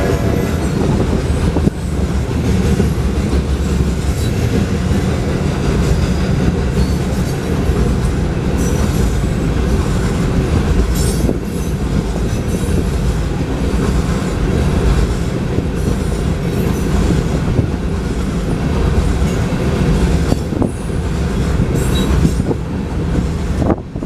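Loaded coal train cars rolling past at a grade crossing: a loud, steady rumble and clatter of steel wheels on the rails.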